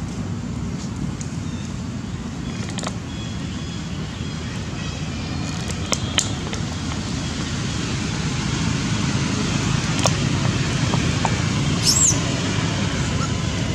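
Steady low rumble of outdoor background noise, with a few faint clicks and a short high chirp about twelve seconds in.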